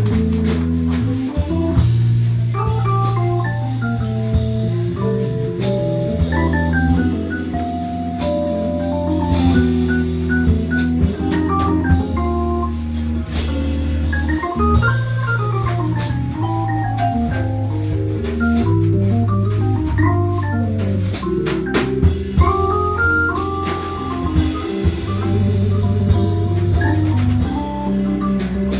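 Live small-group jazz: electric keyboard holding long low bass notes and chords under a drum kit, with vibraphone mallets playing quick note runs that climb and fall.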